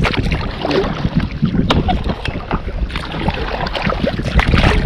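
Wind rumbling on the microphone over water sounds and scattered small knocks from an inflatable boat drifting on a fast river current.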